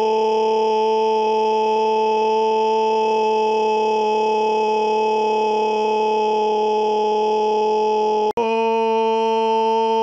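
Loud looped scream sound effect: one held, steady-pitched scream with no rise or fall, cutting out for a split second a little over eight seconds in and starting again.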